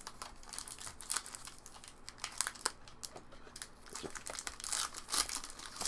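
Foil wrappers of trading-card packs crinkling as packs are opened and cards handled. An irregular string of short crackles, with the loudest one near the end.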